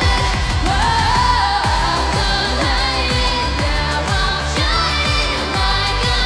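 EDM remix of a K-pop song: sung vocals over a steady, fast electronic kick-drum beat.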